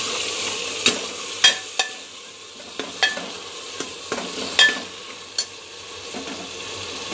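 Onion-garlic paste frying in a pressure cooker while a steel ladle stirs it: a sizzle that thins after the first couple of seconds, with sharp clinks of the ladle against the pot about six times, some ringing briefly.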